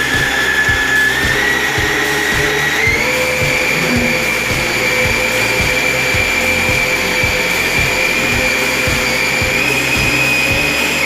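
Small electric motor of a radio-controlled model tugboat spinning its propeller in a tub of water: a steady high whine that steps up in pitch twice in the first few seconds, then holds.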